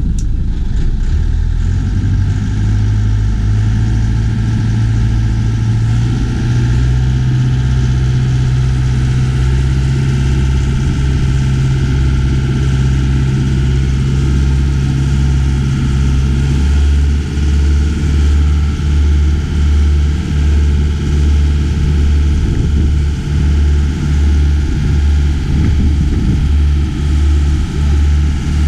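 Motorboat engine running under way, its low hum rising in pitch over the first few seconds as the boat picks up speed, with rushing wind and water. Past the halfway mark the sound pulses regularly, a little faster than once a second.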